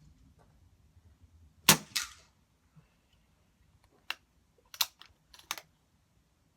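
Air rifle shot: a single sharp crack, followed a moment later by a second, quieter smack, likely the pellet striking the metal reflex target. A few short, sharp clicks follow a couple of seconds later.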